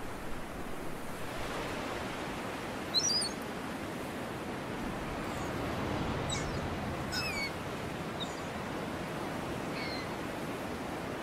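A steady wash of seaside surf, with a few short, high bird calls over it: a sharp one about three seconds in, several more around the middle and one near the end.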